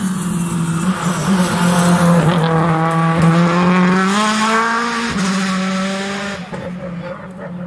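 Race car engine revving hard as the car accelerates past on the mountain road, its pitch climbing and then dropping at a gear change about five seconds in, before fading away near the end.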